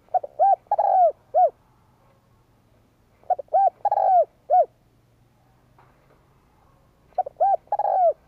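Spotted dove cooing: three phrases about three and a half seconds apart, each a few short coos, then a longer drawn-out note and a final short coo.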